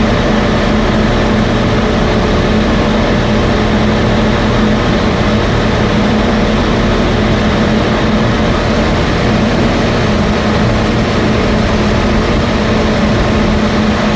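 A train's diesel engine running steadily at a platform, a loud even sound with a constant low hum that does not change.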